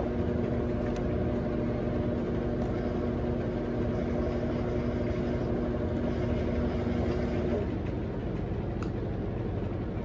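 Electrolux LT12F top-loading washing machine agitating clothes in water during its Perfect Wash rinse: steady motor hum with water churning. The hum's whine drops out about two seconds before the end, while the churning carries on.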